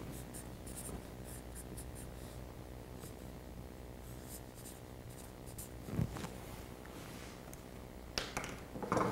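Chipboard template being cut out by hand: faint, scratchy cutting strokes, with a dull knock about six seconds in and a couple more handling knocks near the end.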